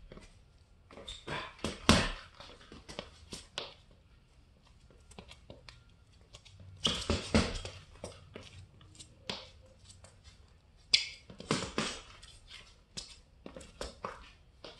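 Boxing gloves landing punches on a hanging punching bag in irregular bursts of combinations, with heavier flurries about two seconds in, around seven seconds and around eleven seconds, and lighter single hits between.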